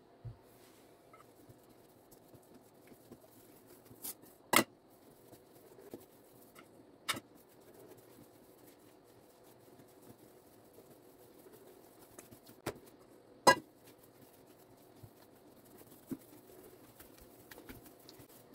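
Hands kneading a stiff dough on a granite countertop: a few sharp knocks and slaps at irregular intervals, the loudest about four and a half and thirteen and a half seconds in, over a faint steady hum.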